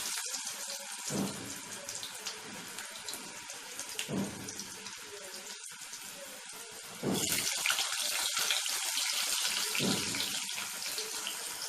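Squeezed, salted potato slices sizzling in hot oil as they deep-fry, a steady hiss with light crackling that grows louder about seven seconds in.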